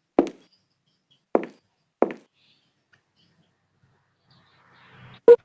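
Three short, dull knocks, the first two about a second apart and the third soon after, then a quiet stretch. A brief, loud pitched sound cuts in right at the end.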